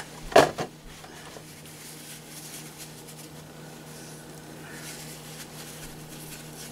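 A brief burst of handling noise about half a second in, then quiet room tone with a steady low hum while small hand movements work glue into a rubber RC tire.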